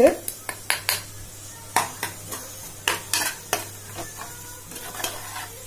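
A metal spoon stirring masala in an aluminium pressure cooker: irregular clinks and scrapes against the pot over a light sizzle.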